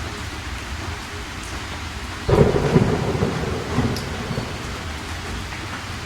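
Steady rain falling, with a sudden clap of thunder a little over two seconds in that rumbles low for about two seconds and dies away under the rain.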